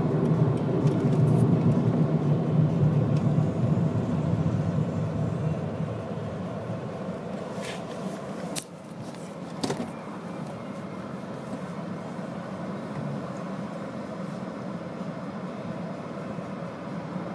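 Steady car road and engine noise heard from inside the moving car. It is loudest for the first few seconds, then eases off, with a few light clicks around the middle.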